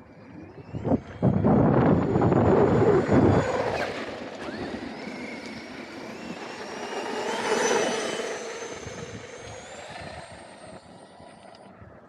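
Traxxas XRT 8S electric RC monster truck running hard on dirt. About a second in there is a loud rush of tyres throwing dirt, then the motor's high whine rises in pitch, swells again midway and fades out as the truck drives off.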